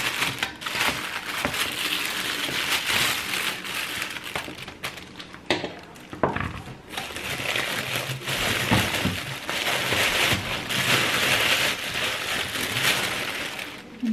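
Clear plastic bag crinkling and rustling as it is pulled off a new electric kettle, with a few light handling knocks.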